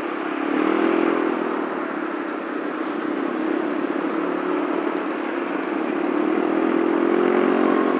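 Yamaha Mio Soul scooter's single-cylinder four-stroke engine running under throttle as it pulls away through traffic. Its note rises about half a second in, eases off in the middle and climbs again near the end, over a steady rush of wind and road noise.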